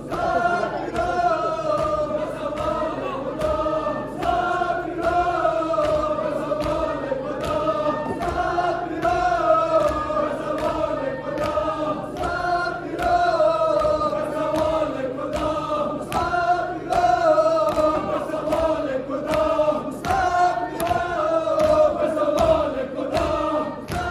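A crowd of men chanting a noha (a Shia mourning lament) in unison. Rhythmic chest-beating (matam) slaps keep time, about one a second.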